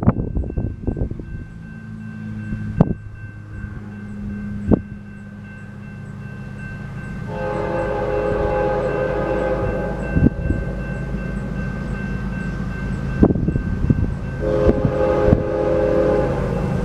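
Approaching freight train led by a GE ES44DC diesel locomotive, its engine rumble growing closer. Its air horn sounds a long blast about seven seconds in and a shorter one near the end, over the steady ringing of the grade-crossing bell.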